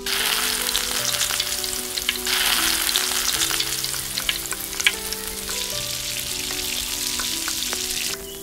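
Prawns sizzling and popping in hot oil in a tiny steel pot, as they are dropped in and turned with a spoon. The sizzle starts abruptly, grows louder about two seconds in, and cuts off suddenly near the end, with soft background music underneath.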